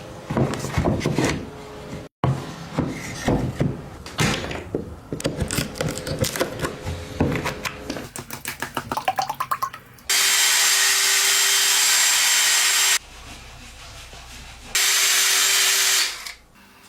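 Woodworking in a workshop: a run of irregular knocks, clicks and scrapes of tools on wood, then a power tool running steadily for about three seconds, dropping to a low hum, and running again briefly before it stops.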